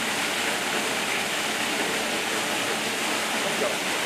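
Steady rushing of falling water, an even noise at a constant level.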